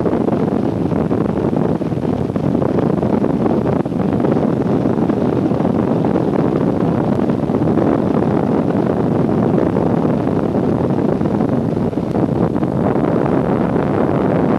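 Steady, loud cabin noise of an airplane in flight: a constant roar of engines and rushing air heard from inside the passenger cabin.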